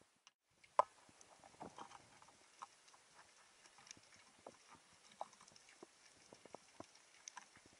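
Scattered underwater clicks and knocks at irregular intervals, with one sharp knock about a second in.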